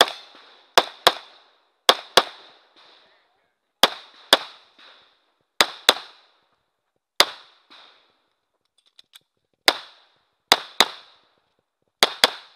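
9mm semi-automatic pistol firing about fifteen shots, mostly in quick pairs with a second or more between pairs, each shot sharp with a short ringing tail.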